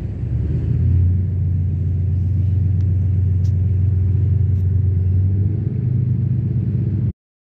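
Low, steady engine drone from a large cargo ship moving under tow, with a deep hum that steadies about a second in. It cuts off abruptly near the end.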